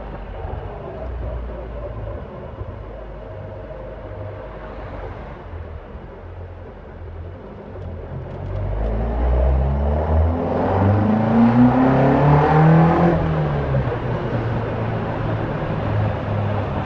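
Caterham Super Seven 1600's four-cylinder engine running at low, steady revs, then about halfway through it revs up under acceleration, its pitch climbing for several seconds before the revs drop and it settles back to a steady run.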